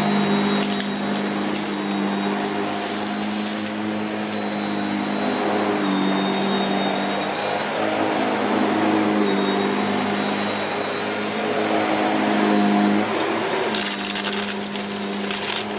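Shark Powered Lift Away NV681UKT upright bagless vacuum cleaner running on carpet as it is pushed back and forth: a steady motor hum with a thin high whine, its pitch dipping slightly now and then. Near the end there is some rougher rustling.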